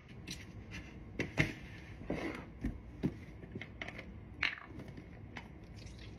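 Quick, irregular clicks and knocks of rough sandwich-making: bread slices handled and set down on a plastic plate, and the flip cap of a ranch squeeze bottle snapped open about four and a half seconds in.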